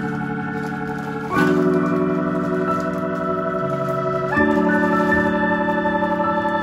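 Background music of sustained organ chords, each held for about three seconds before changing to the next.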